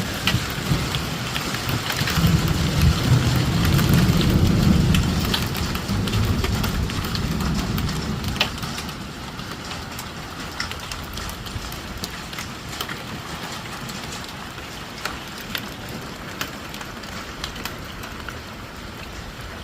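Hail and rain falling, hailstones striking hard surfaces as many sharp ticks in a steady hiss. A heavy low rumble carries through the first eight seconds or so, then the storm noise eases and the ticks come more sparsely.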